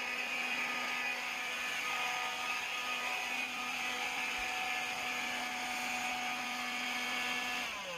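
Swiffer stick vacuum running with a steady motor whine and hiss, then switched off near the end, its motor winding down in a falling pitch.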